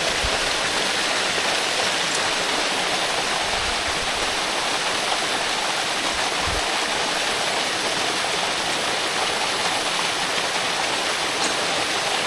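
Steady, even rush of falling water from a waterfall, with a couple of faint low bumps.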